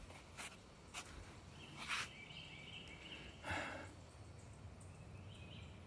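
Faint footsteps crunching on dry leaf litter and pine needles on a forest trail, a few spaced steps, the loudest about two and three and a half seconds in. A faint high call from the woods is held for about two seconds in the middle.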